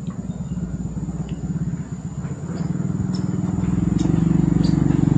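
Small motorcycle engine running and drawing closer, its steady pulsing hum growing louder through the second half.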